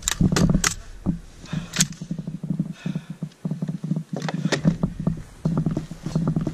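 Four sharp rifle shots from an M4 carbine in the first two seconds, followed by close rustling and knocking of gear and rifle handling against the microphone.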